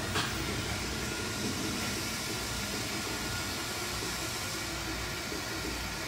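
Steady hiss of a lampworking glass torch flame mixed with shop ventilation noise, with one light tick near the start.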